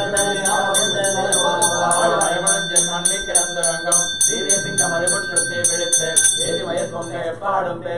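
A puja hand bell rung steadily, about four strokes a second, over priests chanting mantras; the bell stops about six seconds in while the chanting goes on.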